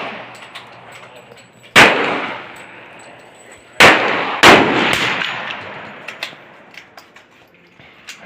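Three loud gunshots at a firing range, each trailing off in a long echo. The first comes about two seconds in, and the other two follow each other about two seconds later, under a second apart.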